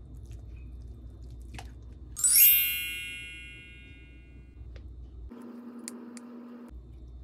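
A single bright, bell-like ding about two seconds in, ringing out with many high overtones and fading away over about two seconds, over faint low background noise.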